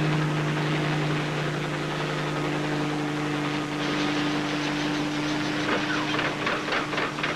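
Helicopter running: a steady engine drone, with a quick rhythmic rotor chop that comes in about four seconds in and grows stronger.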